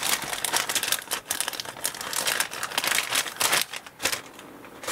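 Clear plastic kit bag crinkling and crackling as a plastic model sprue is handled and wrapped in it. The crackle is dense and irregular, then dies away about four seconds in.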